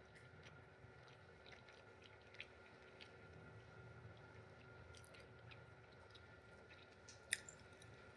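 Faint chewing of a breakfast taco: soft wet mouth clicks and smacks, with a sharper click about two and a half seconds in and another near the end.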